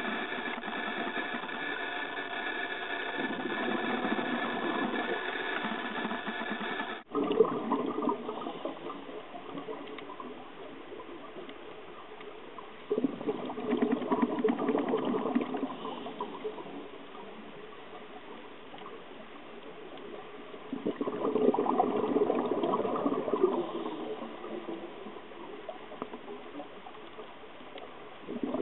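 Scuba regulator exhalation bubbles gurgling past the underwater camera in bursts of about three seconds, roughly every eight seconds, with quieter hiss between breaths. For the first several seconds a steady hum of several tones runs beneath, cutting off abruptly.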